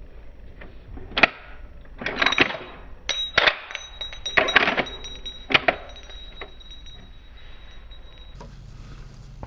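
A series of metallic clicks and clatters: a sharp click about a second in, then three short bursts of rattling and a last pair of clicks a few seconds later, with a faint thin high tone under the middle part.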